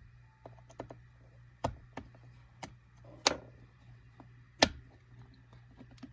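Scattered small clicks and taps of hand tools on an iPhone 5c as its screen is pried open, with three louder clicks spread through.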